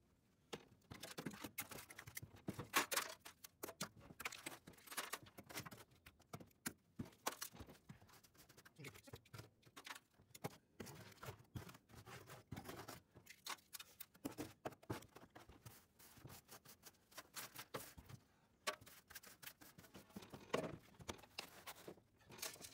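Faint, irregular clicks, knocks and light rattles of objects being handled and moved, with no steady sound underneath.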